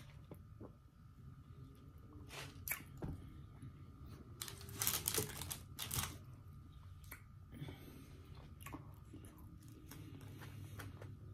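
Close-miked eating sounds: chewing and crunching of fast food, with scattered clicks of food and wrapper handling and a dense burst of crackling about five seconds in.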